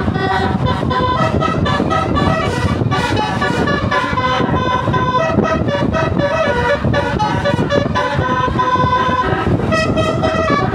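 Multi-tone 'telolet Basuri' bus horn playing a tune, a run of short notes that change pitch two or three times a second.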